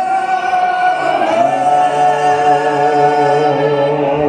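Orchestra with strings and several male voices singing together, holding long sustained notes; a lower note joins about a second and a half in.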